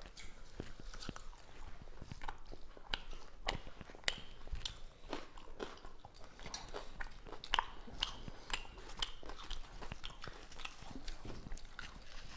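Close-up eating sounds of people chewing chicken curry with roti and rice eaten by hand: a steady run of small, irregular mouth clicks and chews.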